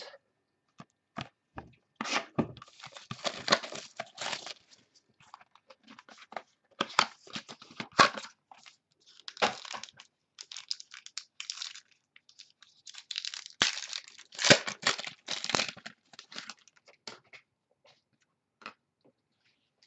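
A trading-card pack wrapper being torn open and crinkled by hand, with cards handled. The sound comes in irregular scratchy bursts and clicks, separated by short pauses.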